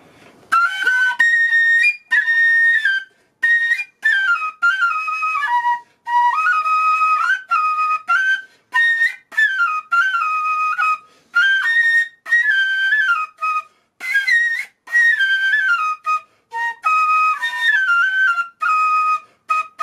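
A white end-blown flute played solo: a clear, high melody of stepping notes that rise and fall in short phrases, with brief breath pauses between them.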